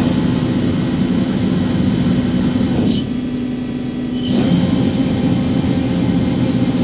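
Mazak CNC lathe running with a steady low hum. Twice, for about three seconds each, a high whine with a rushing noise comes in sharply and ends in a short falling glide.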